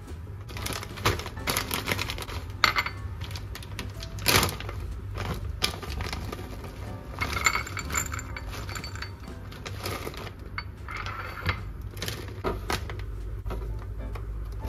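Light clicks, taps and metallic clinks of small objects being handled, over soft background music.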